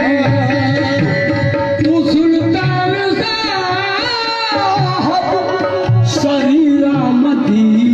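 Live qawwali: harmoniums sounding held chords under a singer's wavering, ornamented vocal line, with hand drums keeping a steady rhythm.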